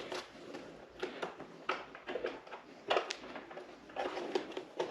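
Irregular light clicks and knocks of hands working motorcycle plastic parts loose, the sharpest knock about three seconds in.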